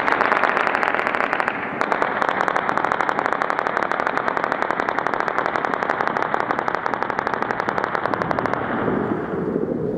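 Machine gun firing one long, unbroken burst at roughly ten rounds a second, stopping about a second and a half before the end and leaving a lower, steady rumble.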